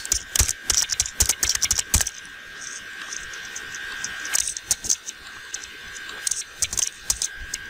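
Typing on a computer keyboard: a quick run of keystrokes in the first two seconds, then scattered clicks, over a faint steady high-pitched tone.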